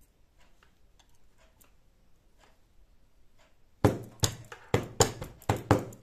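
Industrial lockstitch sewing machine running in a series of about six short, loud spurts, starting almost four seconds in, as lace trim is stitched onto fabric; only faint light ticks before that.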